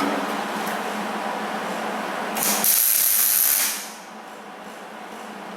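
A small 110-volt MIG welder laying a tack weld: one hissing, sizzling burst about a second and a half long near the middle, stopping sharply, over a steady low background noise.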